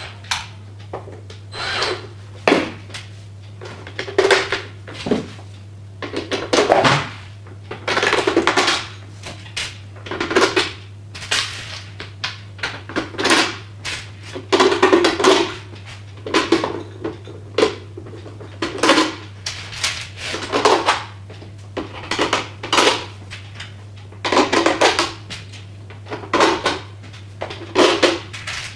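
Irregular clatter and knocks of metal parts and screws being handled while the battery casing is fitted to the underside of an electric scooter, about one to two noises a second, over a steady low hum.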